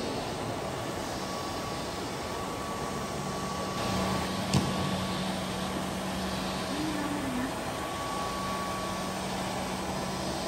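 Autonomous floor-scrubbing robot running, its brush and suction motors making a steady hum with a faint whine, plus one sharp click about halfway through.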